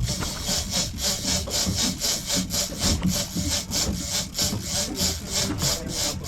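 Heavy fishing reel being cranked hard under load against a hooked tuna, a rhythmic rasping about four strokes a second.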